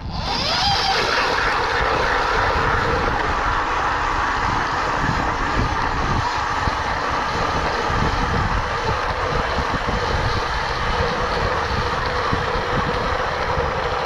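Power ice auger running steadily as it drills a hole through thick lake ice. The motor starts abruptly and holds an even pitch throughout.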